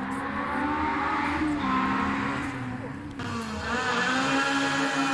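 Race car engine accelerating hard along the course, its pitch climbing and dropping with gear changes; a brief dip about three seconds in, then the revs climb again.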